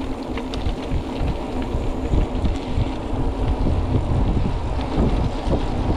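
Wind rumbling over the microphone of a mountain bike on the move, with tyre noise and scattered small rattles and clicks from the bike.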